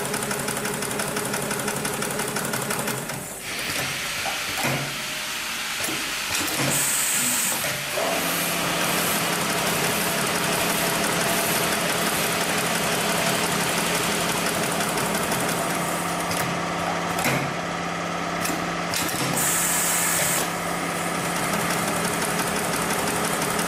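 Computer-controlled industrial pattern sewing machine running a stitching cycle: a steady mechanical running and rattling of the needle drive and moving template carriage. Two short hisses come about seven seconds in and again around twenty seconds.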